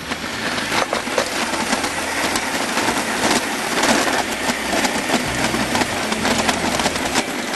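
Electric stand mixer kneading a soft barley-and-wheat bread dough in its steel bowl. The motor runs steadily, with many small knocks from the dough hook working the dough, building up as it starts.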